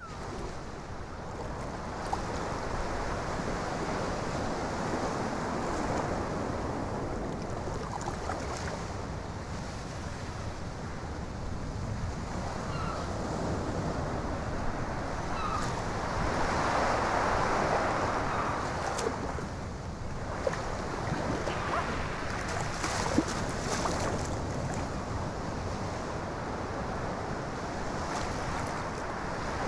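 Sea water washing steadily with wind, swelling louder for a couple of seconds just past the middle, with a few short splashes.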